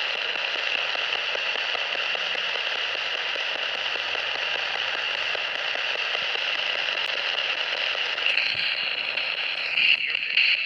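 Spirit box sweeping through radio frequencies: a steady hiss of static flecked with rapid faint clicks, with no clear voice coming through. The hiss turns brighter and a little louder after about eight seconds.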